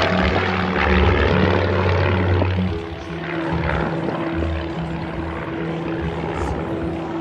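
Propeller aircraft engines droning overhead, louder in the first few seconds and then easing off, with music playing over the show's loudspeakers.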